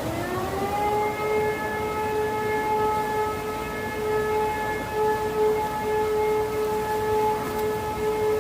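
E57 electromechanical siren winding up, its pitch rising over about the first second, then holding one steady tone. It is sounding the German "Feueralarm" (fire alarm) signal in a siren test.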